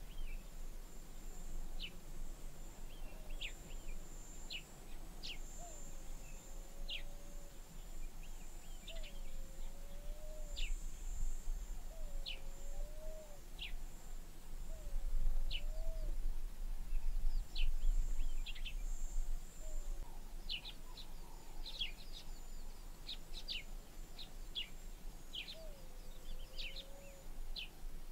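Wild birds calling: quick, high, falling chirps scattered throughout and busier near the end, with a lower whistled, swooping call repeated every second or two. Under them runs a low rumble that swells in the middle, and a faint steady high hum.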